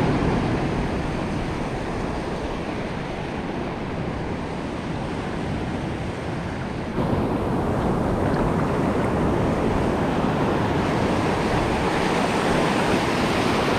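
Ocean surf breaking and washing on the shore in a steady rush, with wind buffeting the microphone. The sound grows a little louder about halfway through.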